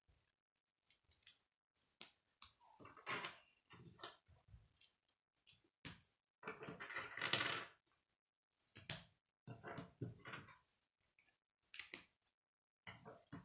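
Plastic K'nex pieces clicking and clattering in the hands as connectors are fitted and snapped onto rods. The sounds come as irregular short clicks, with a longer run of rattling about seven seconds in.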